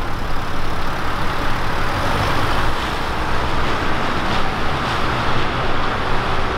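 A dark Audi estate car pulling away from the kerb and driving off: steady engine and exhaust rumble with tyre noise on the road.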